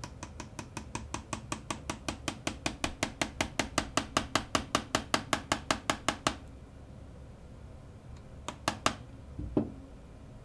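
Small ball-peen hammer tapping a steel roll pin punch in quick light taps, about seven a second and growing louder, driving a roll pin into a Sig 556R safety selector. The taps stop about six seconds in. Then come two sharper taps close together and a dull knock.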